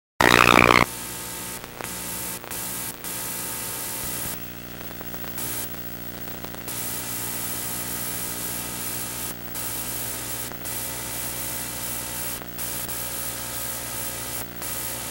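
Analog videotape hiss and static with a steady electrical hum underneath, broken by a few brief dips. A short, loud burst of noise comes in the first second.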